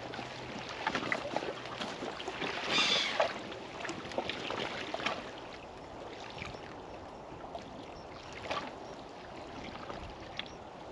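Wind and water lapping at the shore, with scattered small clicks and knocks and a brief louder rasping sound about three seconds in.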